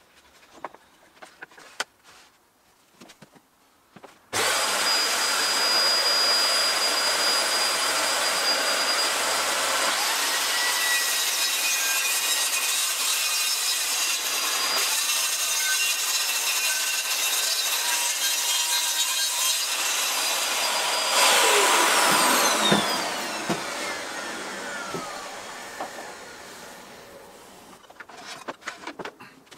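Makita HS7601 190 mm circular saw, running on a guide rail, cutting through a white-faced sheet panel. It starts abruptly about four seconds in and runs steadily through the cut for about seventeen seconds. It is then released and winds down with a falling whine that fades over several seconds, with light handling clicks before and after.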